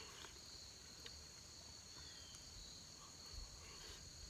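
Faint, steady high chirring of crickets, with a few faint clicks of a fork against the skillet.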